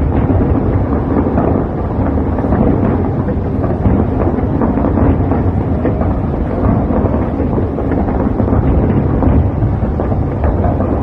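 Fireworks display heard as a continuous rumble of overlapping booms, with many small crackling bangs scattered through it.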